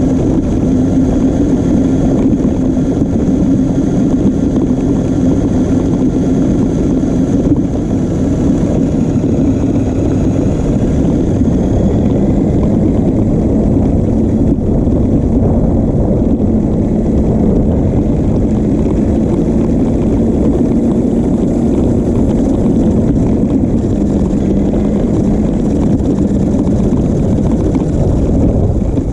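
New Bright Grave Digger RC monster truck driving, its electric motor and gearbox whining steadily over a rough rumble from the wheels and body, heard from a camera taped on top of the truck. The motor's pitch sags slightly in the middle and rises again near the end.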